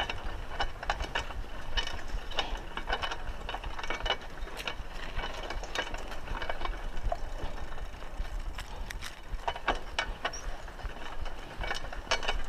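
Raleigh Ascent 26-inch mountain bike rattling and clicking irregularly as it rolls over a rough dirt track, over a steady low rumble.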